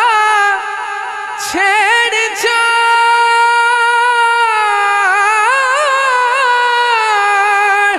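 A man singing an Urdu naat unaccompanied, drawing out a long held note with wavering ornaments.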